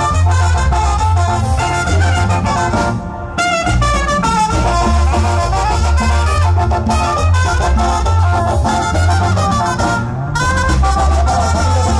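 Latin dance music led by brass, trumpets and trombones over a steady bass beat, with short breaks about three seconds in and again about ten seconds in.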